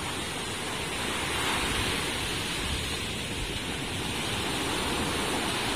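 Steady rush of surf breaking on a beach, swelling a little about a second and a half in and again near the end.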